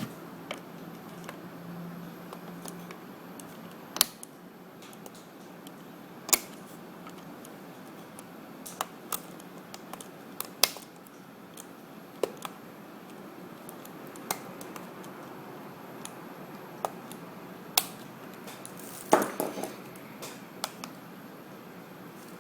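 Sharp plastic clicks at irregular intervals, one every second or few, with a short cluster near the end, as the replacement keyboard of a Toshiba C850 laptop is pressed into the case and its locking tabs are snapped back into place.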